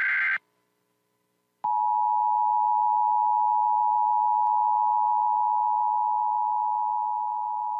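Emergency Alert System broadcast: a burst of the shrill digital SAME header ends almost at once, then after about a second of silence the EAS two-tone attention signal (853 and 960 Hz sounding together) comes in and holds steady, announcing the nationwide test message.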